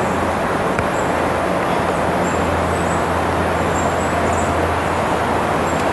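Steady road and engine noise of a vehicle on the move, a continuous rushing with a low drone underneath.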